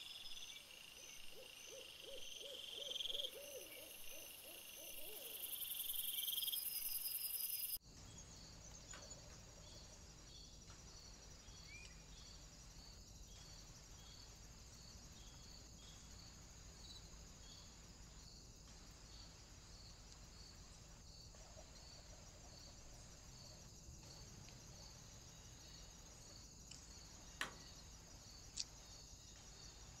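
Crickets and other insects chirping in steady pulses, played back at double speed, with a faint wavering series of hoot-like calls in the first few seconds. The sound changes abruptly at a cut to a steady insect chorus over a low hum, with two sharp clicks near the end.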